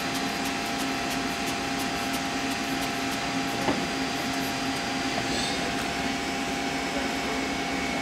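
Steady mechanical hum with several constant tones, like a fan or machine running, with a single light click a little under four seconds in.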